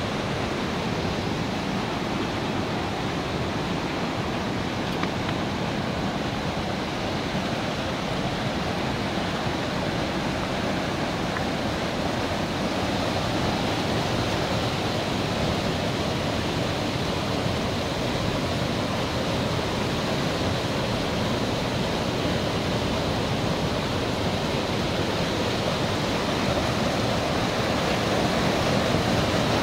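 Creek in high flow pouring over a low dam wall: a steady, even rush of fast-moving water, a little louder near the end.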